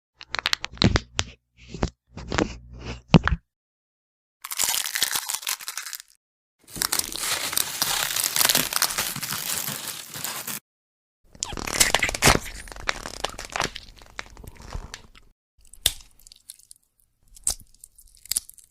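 Bone-break sound effects played one after another with short silences between: first a quick run of sharp cracks and snaps, then three longer crunches of a few seconds each, then a few scattered cracks near the end.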